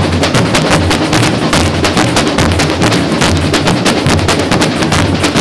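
A samba school bateria playing a samba rhythm: deep surdo bass drums pulsing under a dense, continuous rattle of snare drums and other hand percussion.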